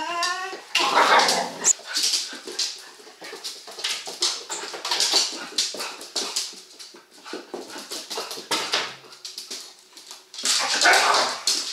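Hungarian vizsla puppy and adult dog at play: a short high whine right at the start, then scuffling with rough noisy bursts, paws and claws clicking on the laminate floor and toys knocking about, with a louder rough burst near the end.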